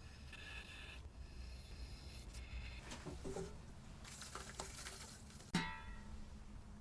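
Quiet workshop handling sounds: light scraping and rubbing, then one sharp metallic clink with a brief ring a little after five seconds in.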